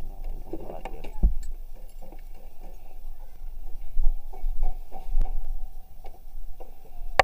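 Scattered clicks and knocks of hands working in a scooter's plastic under-seat compartment, with one heavier thump about a second in, over a steady low rumble.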